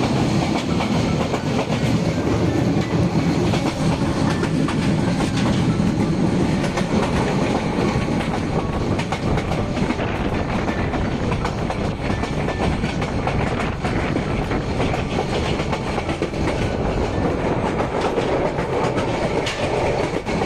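Moving passenger train: steady rumbling and rattling, with wheels clattering over the rail joints.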